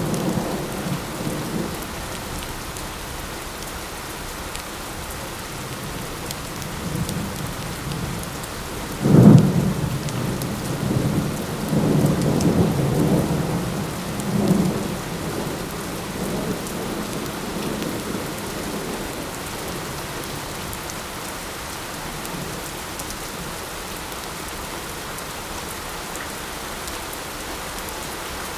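Steady light rain falling. Thunder rumbles faintly at the start, then a loud, sudden peal comes about nine seconds in and rolls on for several seconds before dying away.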